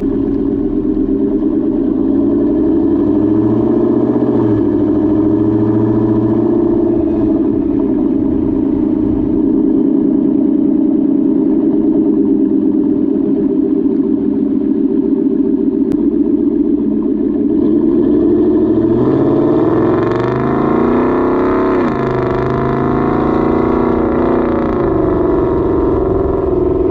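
Ford F-150's 5.0 V8 running through a Corsa Xtreme cat-back exhaust, a deep steady exhaust note with small changes in pitch. It revs higher about two-thirds of the way through, dipping briefly before settling back.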